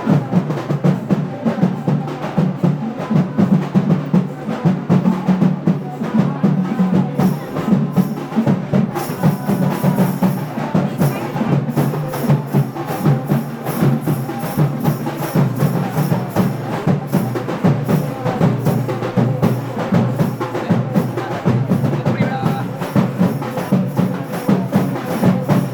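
Music led by fast, steady drumming: a dense run of rapid strokes with a few faint held tones above.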